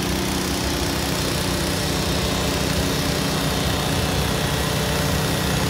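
Steady drone of idling engines, with no change in pitch or loudness.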